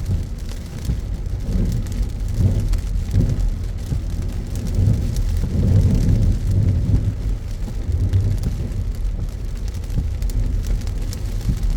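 Car driving through heavy rain: a steady low rumble from the road and car, with rain hitting the car over it.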